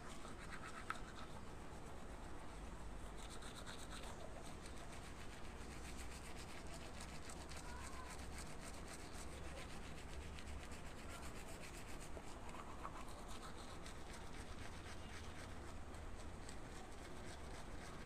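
Manual toothbrush scrubbing teeth through a mouthful of toothpaste foam: faint, rapid back-and-forth brushing that keeps up steadily.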